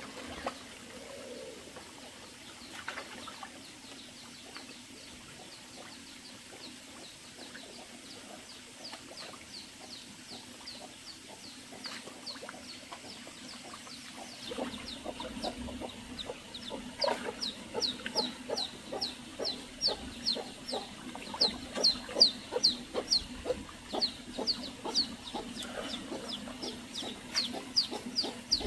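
Chickens clucking and peeping: a long run of short, high calls, several a second, that grows louder about halfway through, over a faint steady low hum.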